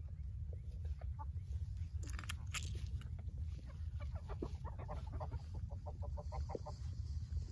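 A group of backyard hens clucking around a water pan, a brief scratchy noise about two seconds in, then a quick run of short clucks through the second half. A steady low rumble lies underneath.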